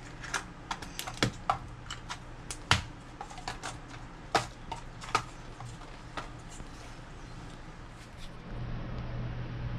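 Lids being snapped onto small clear plastic portion cups and the cups stacked on a granite counter: a run of sharp, irregular plastic clicks and taps that thins out after about six seconds. A low steady hum comes in near the end.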